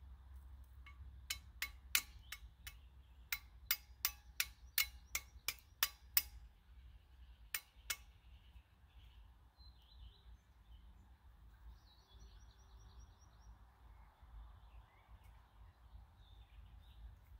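Flint struck against a steel to throw sparks: a quick run of about fifteen sharp clinks, then after a pause two more. Birds chirp faintly in the background afterwards.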